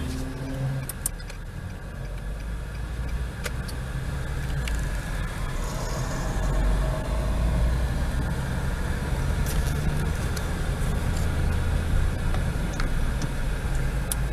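Car interior noise while driving: a steady low engine and road rumble heard from inside the cabin, with a few light clicks.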